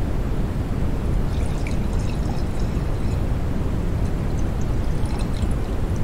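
Carbonated beer fizzing: an even, deep rush of liquid noise with scattered faint crackles of bursting bubbles about a second in and again near the end.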